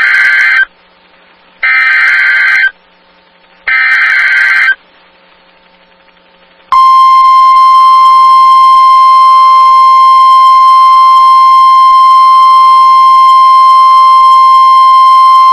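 NOAA Weather Radio alert sequence: three screeching SAME digital data bursts of about a second each, then, about seven seconds in, the steady 1050 Hz warning alarm tone, held for about nine seconds, signalling that a new warning broadcast follows.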